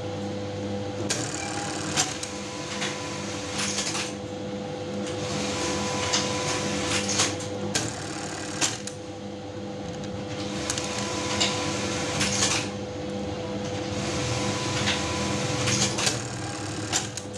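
Simaru 373 button sewing machine sewing on buttons: a steady motor hum under several stretches of rapid stitching, each a few seconds long, with sharp clacks between them. It is a test run after the upper thread path was rethreaded to stop the thread breaking.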